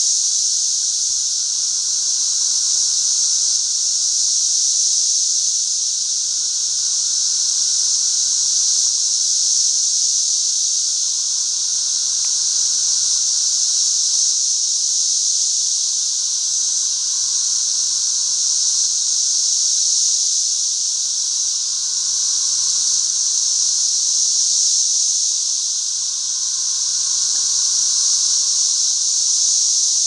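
Dense chorus of 13-year periodical cicadas: a loud, steady, high-pitched whine with a fainter, lower droning band beneath it, slowly swelling and easing every few seconds.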